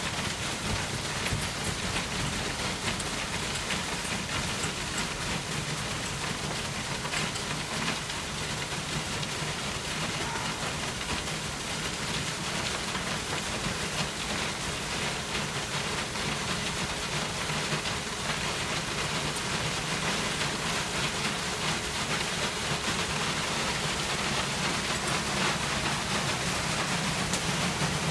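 Concrete mixer truck running while wet concrete pours down its chute into foundation forms: a steady rushing noise over the truck's low, even engine hum.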